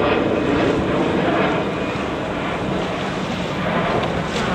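Wind buffeting the microphone over choppy water, a steady rushing noise with water sloshing underneath.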